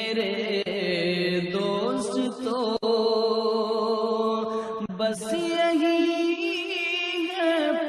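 Background music: a slow melody of long-held, wavering notes in the manner of a chant, changing pitch a couple of times.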